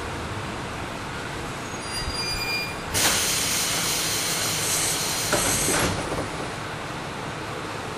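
A KiHa 38 diesel railcar standing with its DMF13HS diesel engine idling, and a loud hiss of compressed air from the car's air system for about three seconds in the middle.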